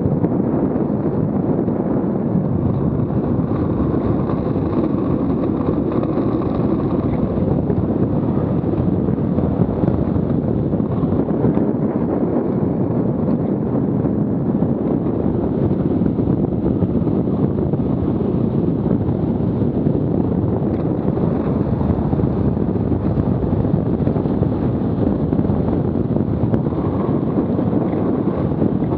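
Steady loud rush of wind buffeting the microphone together with the rolling roar of a Buggy Rollin wheel suit's wheels on asphalt, skating downhill at about 30 to 50 km/h.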